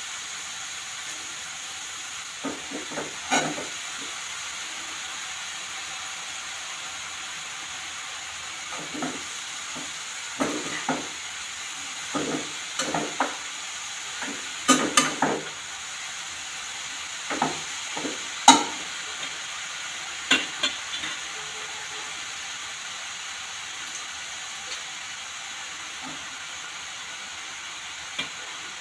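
Grated carrot frying in ghee in a non-stick pan: a steady sizzle, broken every few seconds by short bursts of spatula scraping and knocking against the pan as the carrot is stirred.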